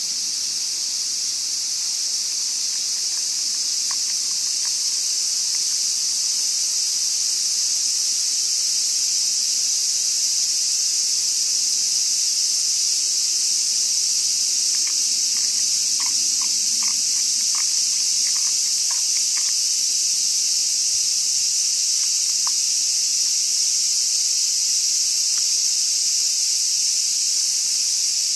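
Steady, high-pitched chorus of summer insects, with a few faint light ticks about halfway through.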